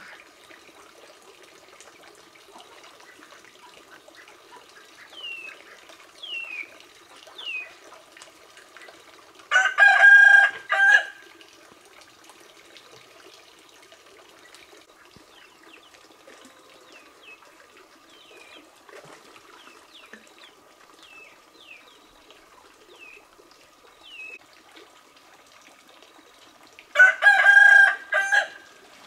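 A rooster crowing twice, about ten seconds in and again near the end, each crow lasting about a second and a half. Between the crows, small birds give short falling chirps.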